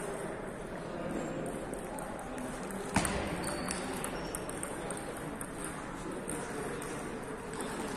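Table tennis ball clicks scattered over a murmur of voices in the hall, with one sharp knock about three seconds in.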